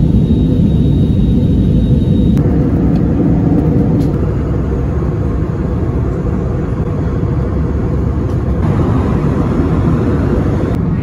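Steady low rumble of cabin noise inside an Airbus A321 in flight, the drone of its jet engines and the rush of air past the fuselage. The sound shifts slightly about two seconds in and again near the end.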